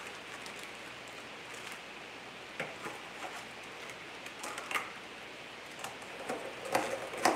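A few scattered light clicks and crinkles of a plastic food package being handled on a kitchen counter, over a steady background hiss. The loudest knock comes near the end.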